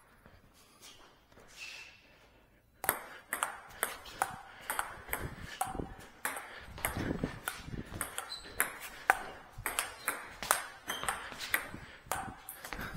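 Table tennis rally: a celluloid ball clicking off bats and table in quick alternation, starting about three seconds in and going on for some ten seconds.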